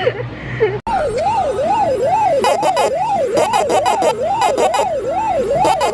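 Emergency vehicle siren on a fast yelp, its pitch sweeping up and down about twice a second. It starts abruptly just under a second in.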